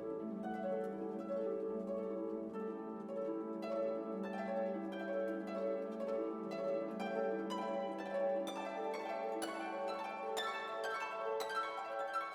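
Background music: plucked harp-like notes over sustained string chords, the plucked notes growing busier and brighter after about four seconds.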